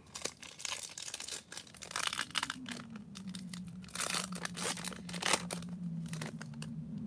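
A foil Topps Chrome trading-card pack torn open by hand, the wrapper crinkling and crackling in irregular bursts.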